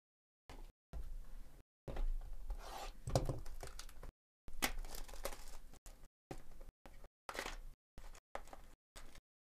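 Plastic shrink wrap being torn off a cardboard baseball-card hobby box and crinkled by hand as the box is opened, in stop-start bursts.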